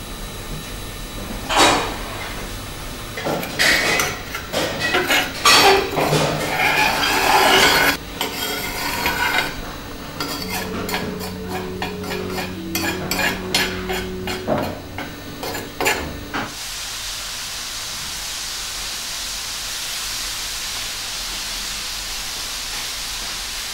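Irregular clatter and knocks, like objects being handled, with a few held low tones partway through, then a steady even hiss for the last several seconds.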